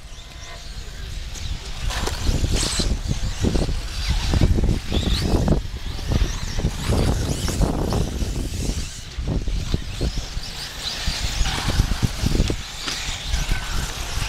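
Electric 1/8-scale off-road RC buggies racing on a dirt track, their sound coming and going in irregular surges over a low rumble.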